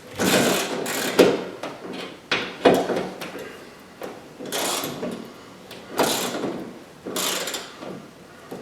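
Socket ratchet wrench cranked back and forth in about five strokes, each a burst of ratcheting, driving a mounting screw into the wall stud.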